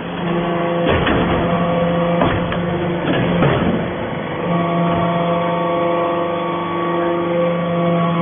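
Fuel-driven hydraulic metal-swarf baler running: a steady engine-and-pump hum, its pitch shifting about halfway through, with a few short knocks in the first half.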